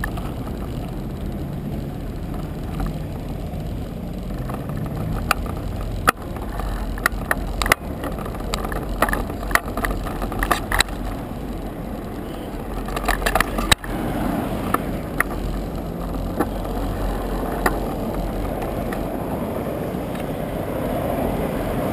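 Bicycle riding over pavement and sidewalk: a steady rumble of tyres and wind on the microphone, with scattered clicks and rattles as the bike jolts over bumps; cars pass on the road alongside.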